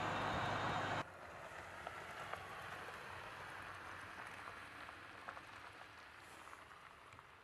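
Jeep Gladiator driving, a steady tyre-and-road noise that cuts off sharply about a second in. It gives way to a much quieter crackling hiss with scattered faint ticks, which slowly fades.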